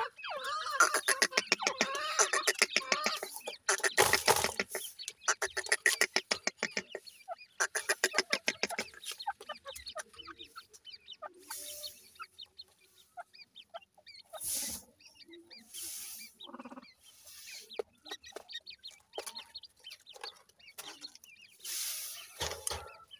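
Grey francolin calling: a fast, dense run of clucking calls for about the first nine seconds, then scattered single chirps and peeps with a few brief rustling noises.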